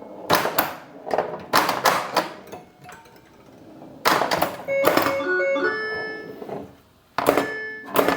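Bally Paragon pinball machine in play: sharp mechanical clacks from the flippers and solenoids, with short electronic beeping tones from its Bally AS-2518-50 sound board in the middle.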